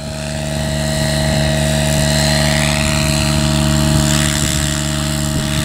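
Align T-REX 700 radio-controlled helicopter in flight: a steady rotor and drivetrain hum that grows louder over the first couple of seconds as the helicopter comes in close.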